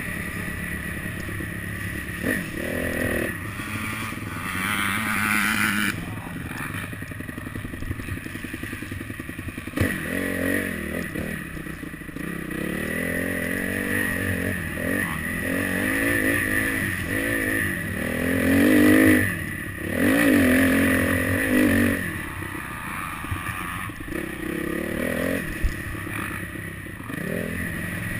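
Motocross bike engine revving up and easing off again and again as it is ridden round a dirt track, heard from a camera mounted on the bike. The hardest throttle surges come about two-thirds of the way through.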